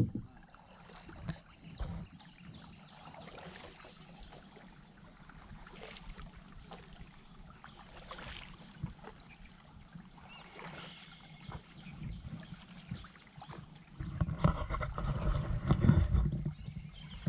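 Water lapping and small paddle splashes around a canoe moving across calm water, with scattered light knocks. Near the end a louder stretch of low rumbling sets in for a few seconds.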